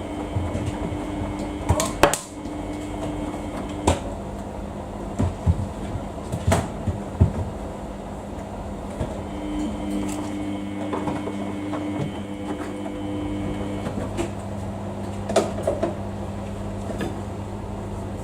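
Samsung washing machine running a wash: a steady motor hum that comes and goes in stretches, with scattered knocks and clicks from the drum and the load inside it.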